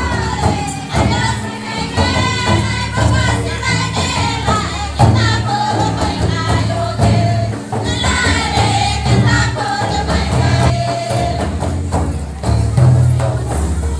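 Live Sadri folk dance music: a group singing a melody together over a steady beat of hand-played barrel drums.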